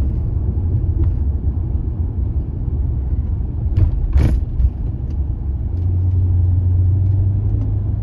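Car driving with a low, steady road and engine rumble. There is a brief sharp noise about four seconds in, and a steady low drone for about two seconds near the end.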